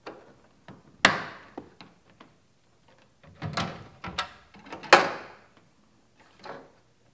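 Knocks and clicks of a 3D-printed wood-filament dash vent being pressed into its slot in a bare steel car dashboard and of the glovebox door being handled. A sharp knock comes about a second in, then a cluster of knocks, the loudest near five seconds, and a softer one near the end.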